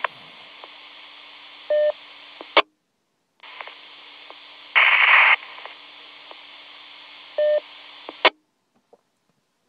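Motorola M-120 VHF mobile radio receiving an open, unmodulated repeater carrier: steady hiss with a low hum, a short beep, then the squelch closes with a click. The carrier returns with a brief burst of louder hiss and another short beep, then cuts off with a second squelch click.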